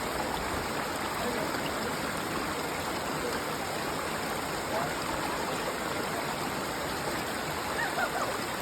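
Water of a stream running steadily over stones, a continuous rushing and burbling.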